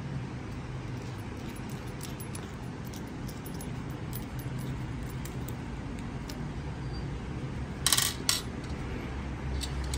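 Small metal clicks and clinks as a soldering iron's threaded tip nut and barrel are unscrewed and the tip is changed. Two sharper clinks come about eight seconds in, over a steady low hum.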